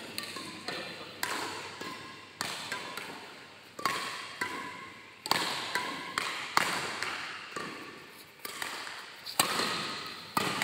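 A doubles rally: about eight sharp hits, roughly one every second and a quarter, each ringing out in a large hall's echo.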